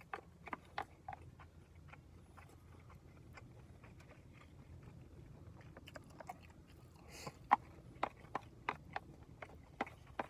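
A man chewing a beef-bowl bento: short wet mouth clicks that come sparsely at first and then in quick runs from a little past halfway, over a low steady hum.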